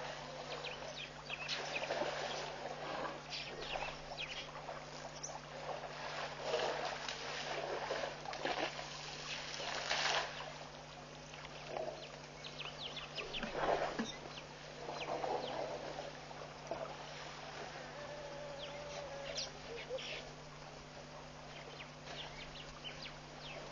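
Waterhole sounds of African elephants sloshing and splashing in the shallows, with scattered short clicks and bird calls over a steady low hum.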